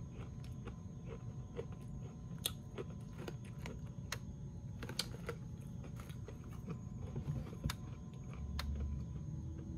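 Chewing crunchy honey-oat cereal clusters, with scattered crisp crunches over a steady low hum. A low rumble lasts about a second near the end.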